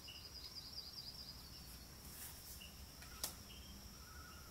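Quiet background with a faint steady high whine, a few soft short chirps, and one small click about three seconds in.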